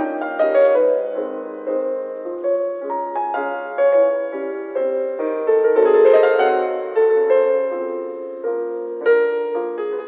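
Slow solo piano music: notes and chords struck every second or two, each ringing and fading away.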